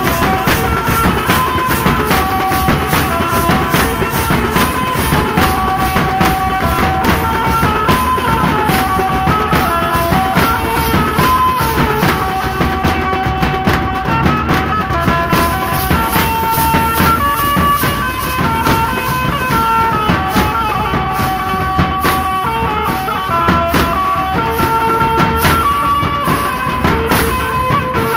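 Street drum band playing a loud, driving beat on marching bass drums and side drums with clashing hand cymbals, while a melody of held notes steps up and down over the drumming.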